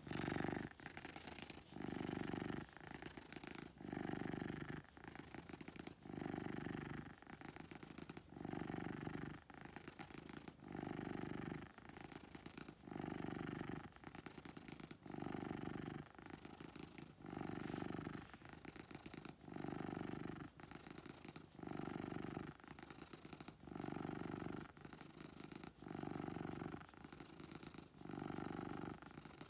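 Black-and-white tuxedo house cat purring steadily while being stroked, the purr swelling and easing about every two seconds.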